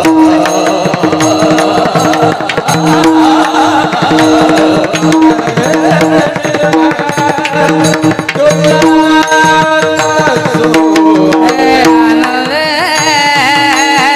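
Varkari devotional bhajan music: a hand drum keeps a steady rhythm over a held drone note, with a singing voice coming through in places.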